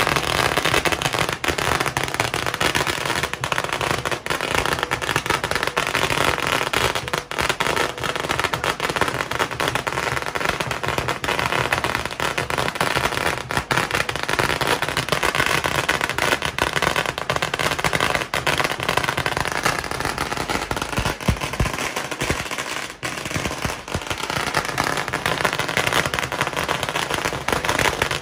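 A long string of firecrackers going off in an unbroken, rapid crackle of small bangs.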